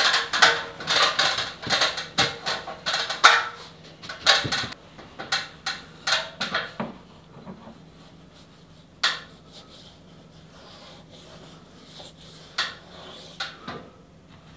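Clattering of hard household objects being handled: many quick knocks and taps for about seven seconds, then a few single knocks over a faint steady low hum.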